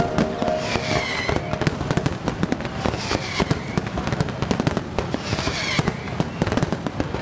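Fireworks display: dense, irregular crackling and popping of bursting shells and fountains, with a few high whistles that fall in pitch.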